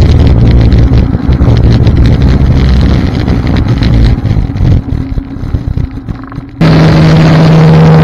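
Snowmobile engine running at trail speed, with wind on the microphone. The engine eases off and the sound grows quieter and rougher for a couple of seconds, then changes suddenly to a steady, higher engine drone near the end.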